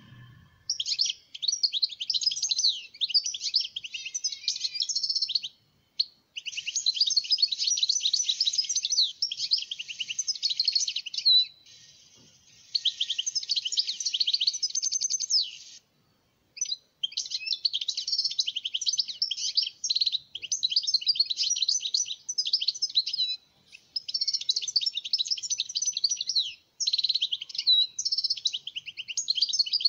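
European goldfinch singing: long phrases of fast, high twittering and trills, broken by short pauses about six, twelve, sixteen and twenty-seven seconds in.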